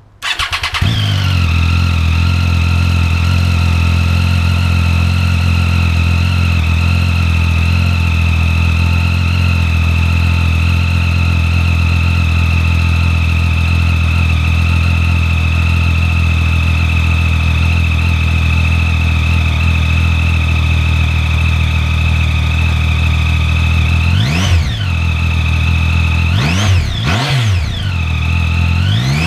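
Triumph Street Triple's 675 cc inline three-cylinder engine starting up, then idling loud and steady with a thin high whine over it. Near the end it is revved in three quick throttle blips, each rising and falling back to idle.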